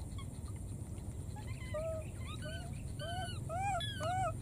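Baby macaque giving a rapid series of short, high, arching coo calls, about eight of them from a little under two seconds in, coming faster near the end, over a steady low rumble.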